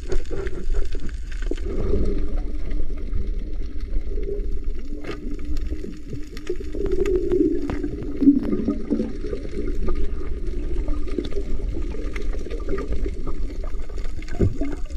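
Underwater sound picked up by a submerged camera: a muffled, wavering low drone and gurgling of moving water, with scattered sharp clicks.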